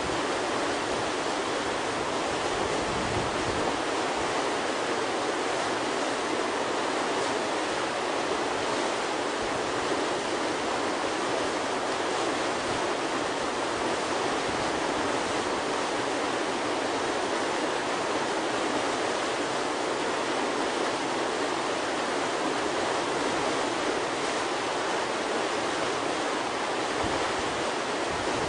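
Whitewater churning in a river hole, a steady rushing that stays the same throughout.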